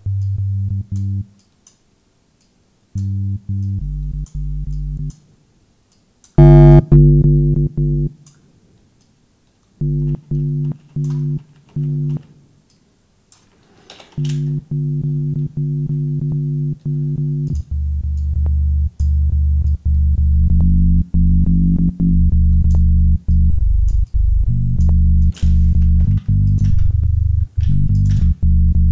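Growling synth bass patch from Native Instruments Massive, run through a phaser and overdrive with a sub bass under it, played as short held notes with gaps between phrases, the loudest hit about six seconds in, then a steadier run of lower, chopped notes through the second half.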